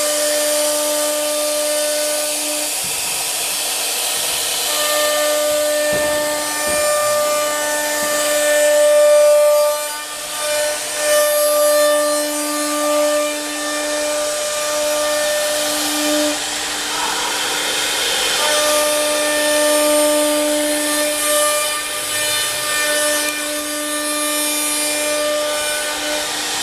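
CNC router cutting wood, its air-cooled spindle running with a steady high whine and a rasping cutting noise. The whine's tones drop out and return every few seconds as the machine moves between cuts.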